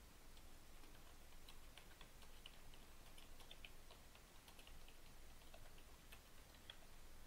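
Faint computer keyboard typing: a quick, irregular run of soft key clicks that stops near the end.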